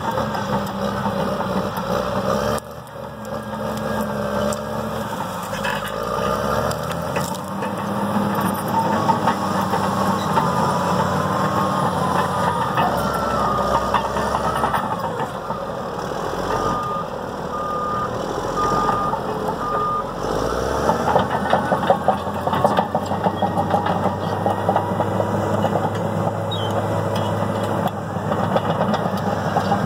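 Caterpillar D6R crawler dozer's diesel engine running under load, with a steady clatter from its steel tracks as it pushes dirt. About seventeen seconds in, its backup alarm beeps four times, about once a second.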